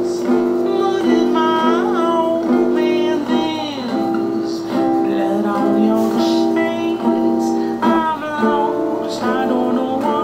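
A woman singing a melody while strumming an acoustic guitar.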